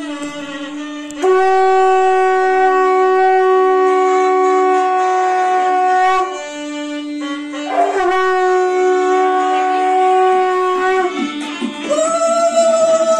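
Conch shell (shankha) blown in long, steady blasts. The blasts end with short pitch slides, and the last one, near the end, is higher.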